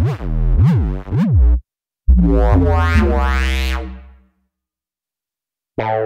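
Tone2 Gladiator software synthesizer playing a bass preset: three short notes that bend in pitch, then one held low note whose tone brightens in a rising sweep before it fades out. After a second and a half of silence, the next preset starts with a run of notes near the end.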